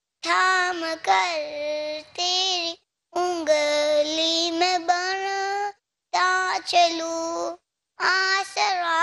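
A young boy singing a devotional song alone into a microphone, with no accompaniment. He sings in sustained phrases separated by brief silent breaks.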